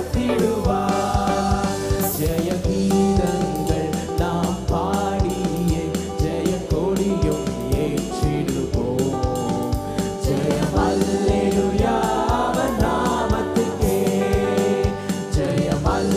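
A Christian worship song, sung into microphones by a woman and a man, over instrumental accompaniment with a steady drum beat.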